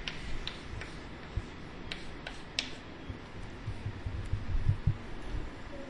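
Chalk tapping and scraping on a blackboard as words are written: a series of faint, short ticks through the first two and a half seconds, then only low room noise.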